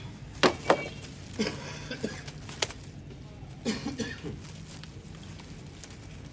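Plastic wrap crinkling around a new air filter as it is handled, with a few sharp crackles, the loudest about half a second in and another near the middle.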